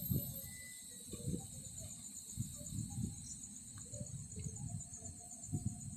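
Steady chorus of night insects, with a high, evenly pulsing chirp, over faint low rumbling and occasional knocks.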